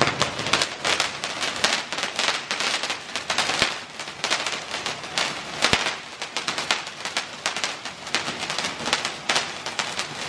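Ground fountain firework spraying sparks, giving off a loud, dense crackle of many small pops in quick succession.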